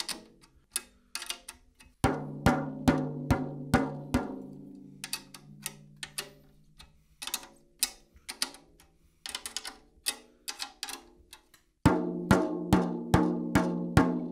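A drumstick tapping the resonant head of a 10-inch tom in quick strokes near each tension rod while it is tuned up lug by lug. A run of harder hits about two seconds in, and again near the end, lets the head ring on one low, even pitch, still well below the target, around an F.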